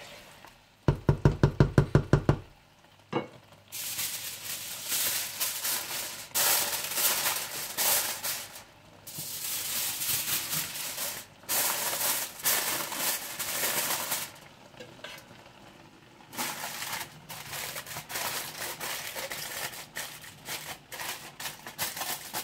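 Rice cooking in mutton stock in an open pot, sizzling and hissing as its water boils off before it goes on dum, in several stretches with short gaps. About a second in there is a quick rattle of some ten rapid knocks.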